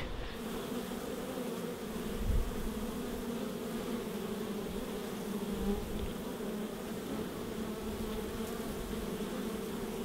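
Many honey bees buzzing together at a hive in a steady, even hum. A single low bump comes about two seconds in.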